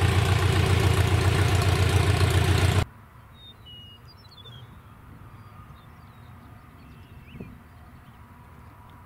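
Continental O-200 four-cylinder engine of a light aircraft running steadily at low taxi power close by, with a strong low pulsing beat from the propeller. It cuts off suddenly about three seconds in, leaving a quiet background with faint bird chirps.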